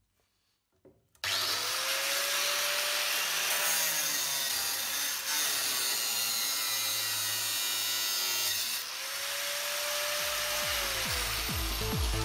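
Makita angle grinder, mounted in a cut-off stand, cutting through a metal rod with a harsh grinding hiss. It starts abruptly about a second in, and its motor whine rises and sags twice as the disc is loaded. Electronic music with a beat comes in near the end.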